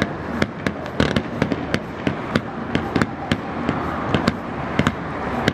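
Fireworks display: shells launching and bursting in a rapid, irregular run of sharp bangs, several a second, over a steady background rumble.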